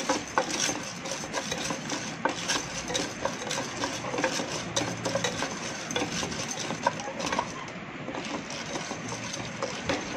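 Dry popcorn kernels stirred in hot oil in a pot with a wooden slotted spatula, with a steady scraping and many light clicks as the kernels knock about. The kernels are being tossed in oil over high heat before they begin to pop.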